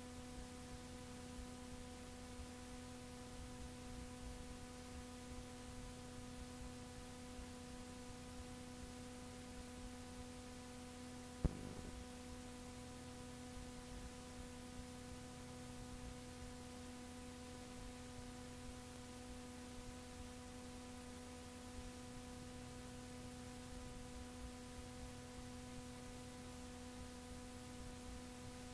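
Blank stretch of a cassette tape transfer: steady electrical hum with tape hiss, and one sharp click about eleven seconds in.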